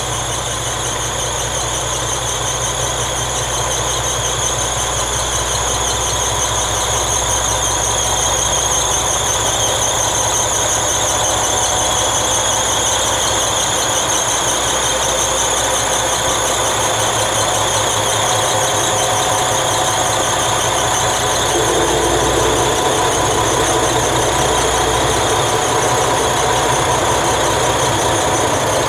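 Diesel engines of a KTR001 Tango Explorer railcar running as the train moves slowly past, with a low throb under a steady high whine. The engine note changes about two-thirds of the way through.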